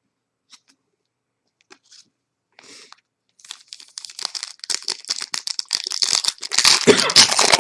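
Foil trading-card pack wrapper crinkling as it is handled. A few faint ticks come first, then the crinkling starts about three seconds in and grows louder toward the end.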